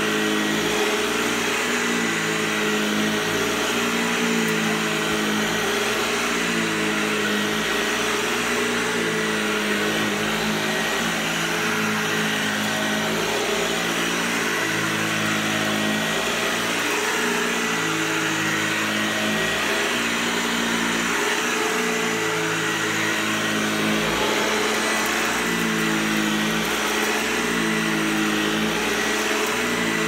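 Hoover Lightweight 1340 upright vacuum cleaner running on carpet, its motor pitch shifting up and down every couple of seconds as it is pushed back and forth under a steady high whine.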